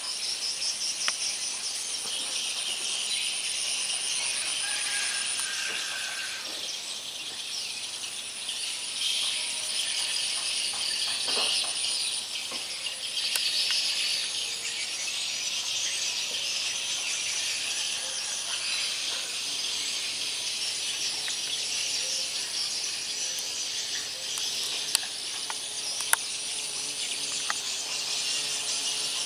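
Outdoor insect chorus of crickets or cicadas, trilling and buzzing steadily. A higher, thin trill drops out and comes back several times, with a few bird chirps mixed in. Two sharp clicks come near the end.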